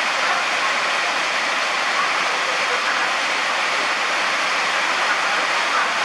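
Heavy rain pouring down steadily on a station platform and tracks, a dense, even hiss.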